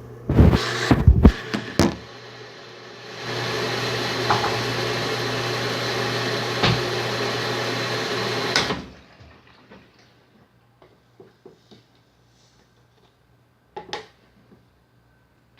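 Enxuta washing machine: a few loud knocks, then the machine runs steadily with a hum for about six seconds and stops suddenly, leaving only faint clicks.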